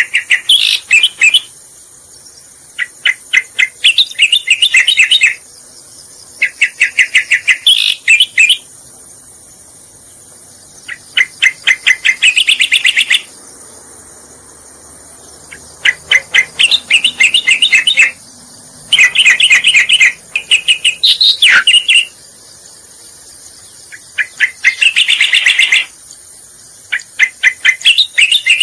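Cica koreng (striated grassbird) song played as a lure recording: loud phrases of rapid, chattering repeated notes, each about one and a half to two seconds long, recurring every few seconds. A steady high-pitched hiss runs underneath.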